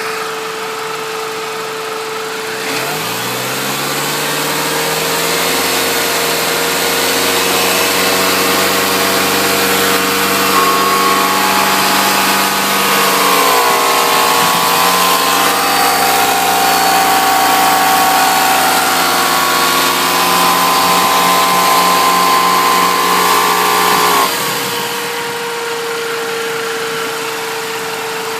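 R53 Mini Cooper S's supercharged 1.6-litre four-cylinder engine idling, then revved up a few seconds in and held at raised revs. A higher steady whine joins midway. About 24 seconds in it drops back to idle. This is the odd noise that appears only with the A/C or heater on between 2,700 and 3,000 rpm.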